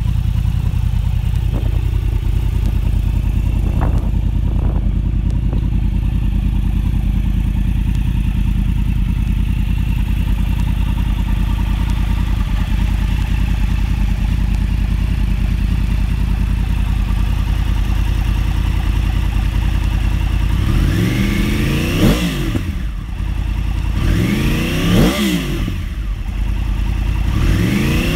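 2013 Yamaha R1's crossplane-crank inline-four idling steadily through a GYTR exhaust, then revved three times in quick succession near the end, each rev rising sharply and dropping straight back to idle.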